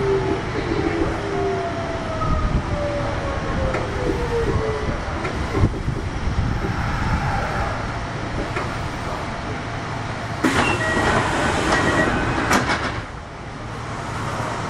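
Kintetsu 1021-series electric train with Hitachi GTO-VVVF traction inverters braking, the inverter tones falling in pitch over the first few seconds over steady wheel-and-rail noise. Toward the end there are sharp clicks and a high steady squeal as it draws to a stop.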